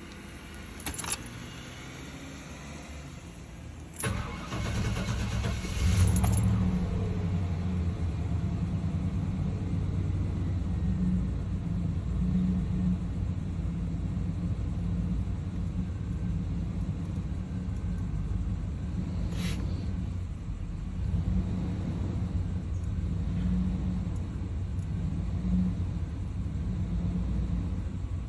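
Chevrolet 350 V8 with throttle-body injection cranking for about two seconds, catching, and settling into an uneven, rough idle. The rough idle has not been cured by a new EGR valve, plugs, wires and fuel filter.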